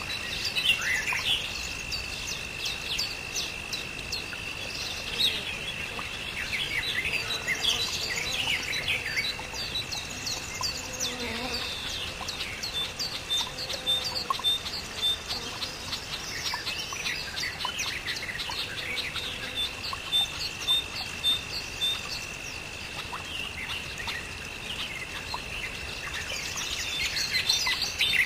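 Several birds chirping and whistling together in a busy chorus, with a few runs of quickly repeated high notes, over a steady high-pitched tone.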